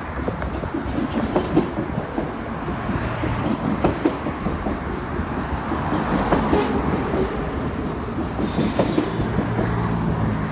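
Cars of a long manifest freight train rolling past, with a steady rumble and wheels clicking and clanking over the rail joints.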